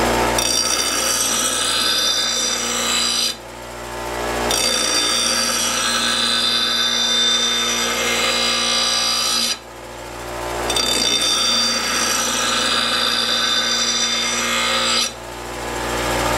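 Delta 6-inch bench grinder running with a steel lawnmower blade pressed to its wheel, grinding the nicked edge sharp in a steady high rasp. Three times the blade comes off the wheel: the grinding cuts out suddenly and only the motor's hum remains, then builds back up as the blade is pressed on again.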